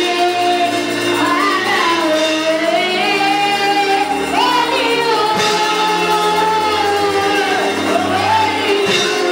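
A young girl singing a gospel song into a microphone, with long held notes and slides between pitches, over a steady electronic keyboard accompaniment.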